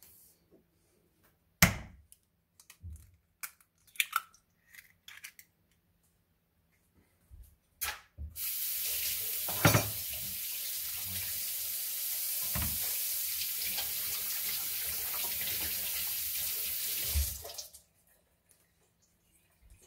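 A few sharp knocks and clicks in the first seconds as an egg is cracked into a plastic bowl. Then a kitchen tap runs water steadily for about nine seconds and is turned off.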